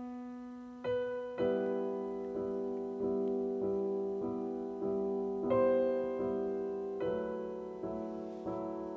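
Solo piano background music: slow, evenly repeated notes, each struck and left to fade, with a new chord coming in about a second in and again partway through.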